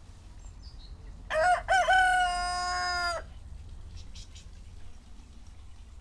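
A rooster crows once, about a second in: a few short choppy notes and then one long held note, about two seconds in all.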